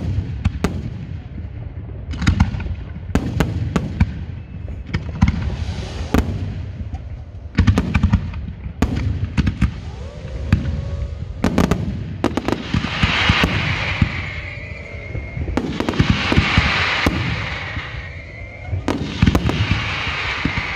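A fireworks display: aerial shells bursting in a rapid, irregular run of sharp bangs, with two longer stretches of dense crackling about two-thirds of the way through.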